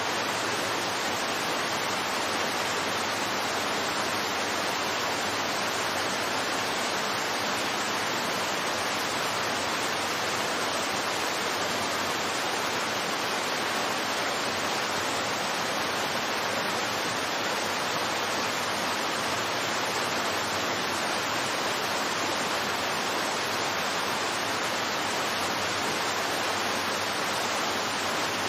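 Steady rushing of water from the man-made waterfall on Seoul's Cheonggyecheon stream: an even, unbroken hiss of falling water.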